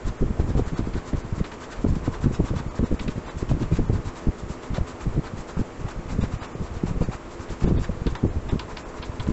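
Hand rubbing over the inside of a bent plywood ring: repeated scraping strokes with irregular low bumps as the ring shifts against the wooden bench.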